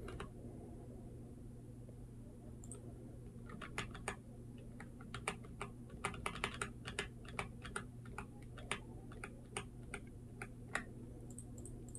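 Faint computer-keyboard clicks: the Ctrl+Z undo shortcut pressed over and over, about two or three keystrokes a second, starting about three and a half seconds in.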